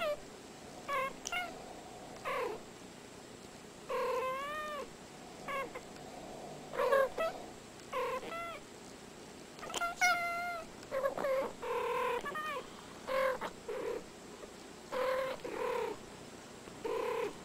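Two domestic cats chattering in short meows and trills, a new call every second or so, some of them rising and then falling in pitch.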